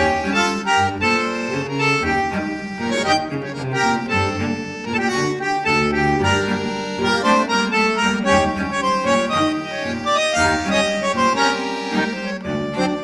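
Lively instrumental music led by an accordion, with quick changing notes over a steady bass.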